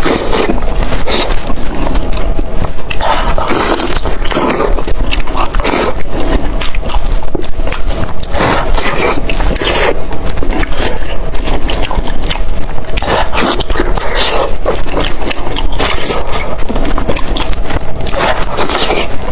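Close-miked eating sounds: loud, irregular chewing, smacking and slurping of food.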